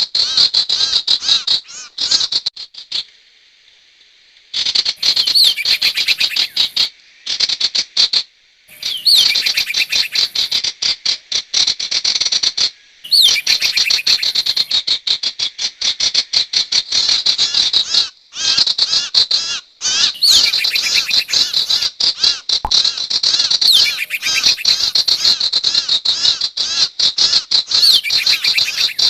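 Sirtu bird-lure call recording: dense, rapid runs of high-pitched chattering chirps, broken by a few short pauses of about a second.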